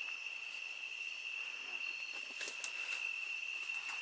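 A steady, high, unbroken chorus of night insects. A couple of brief rustles of brush being pushed through come about two and a half seconds in.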